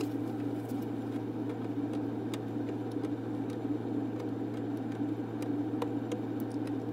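Steady low mechanical hum, with a few faint light ticks as raw zucchini slices are laid onto a mesh dehydrator tray.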